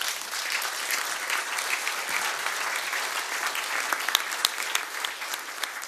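Audience applauding, the clapping easing off a little near the end.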